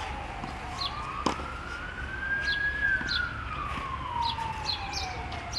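An emergency-vehicle siren wailing, its pitch sliding slowly up and then back down over a few seconds, with one sharp hit about a second in.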